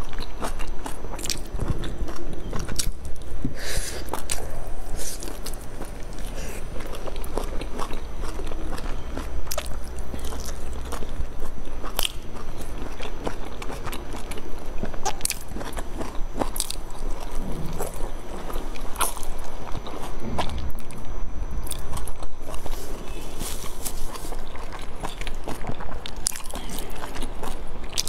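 Close-miked chewing and biting of soft boiled dumplings, with many small mouth clicks throughout.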